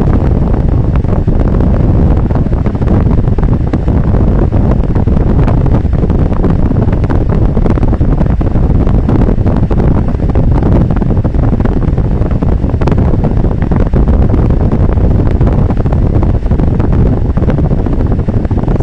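Car driving along a street, heard from inside the cabin through a windscreen-mounted dashcam's microphone: a loud, even rumble of road and wind noise with no distinct events.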